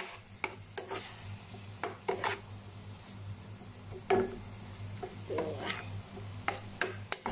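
Metal spatula scraping and clinking against a wok in irregular strokes while bean sprouts and vegetables stir-fry in a little broth, with sizzling underneath.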